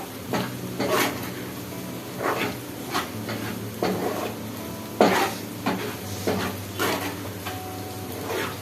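Spoon stirring chicken frying in a metal pan: irregular clinks and scrapes against the pan, about one or two a second, over a light sizzle.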